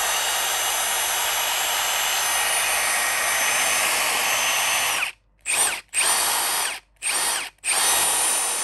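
Milwaukee M18 2850 brushless impact driver spinning with no load: a steady high motor whine for about five seconds, then four shorter trigger pulls, each rising in pitch as the motor spins up.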